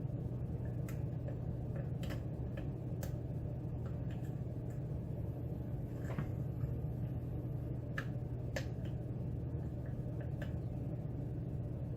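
Faint, irregular small clicks and scrapes of a hook pick working the pins of a pin-tumbler lock under tension, over a steady low hum.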